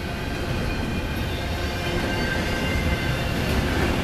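Double-stack intermodal freight train rolling past: the steady rumble of the well cars' steel wheels on the rails.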